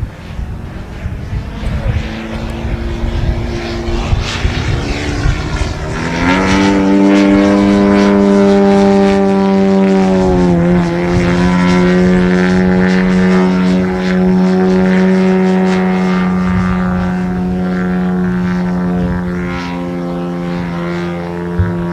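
Small aerobatic propeller plane's engine and propeller droning overhead. About six seconds in the pitch rises and it grows louder, dips briefly around ten seconds as the plane passes, then holds a steady drone.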